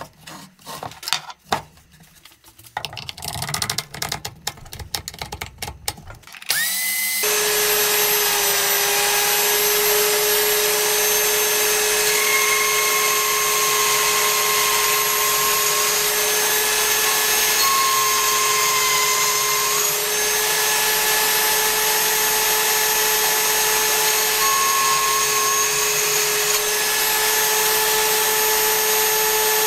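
Several irregular clicks and knocks of small parts being handled. Then, about six and a half seconds in, an electric power tool switches on, spins up and runs steadily with a constant tone through to the end.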